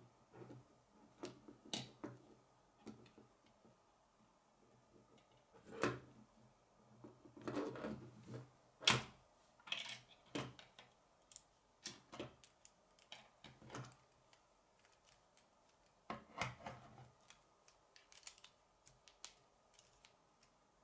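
K'nex plastic rods, connectors and gears being handled and snapped together: scattered light plastic clicks and snaps, some bunched in quick runs around the middle and again later on.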